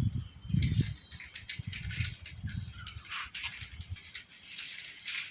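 Crickets chirring: a steady high-pitched insect drone, with a few faint scattered clicks.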